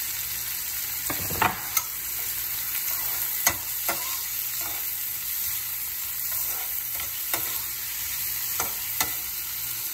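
Onions, sweet peppers and sliced hot dog sizzling in hot oil in a frying pan, stirred with a metal spoon. The spoon clinks and scrapes against the pan several times.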